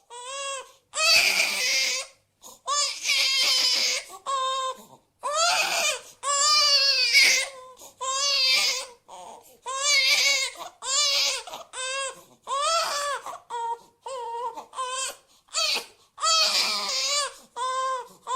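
A baby crying in a fussy tantrum: a run of high wailing cries, each half a second to two seconds long, broken by short gasping pauses, the longest wail about five seconds in.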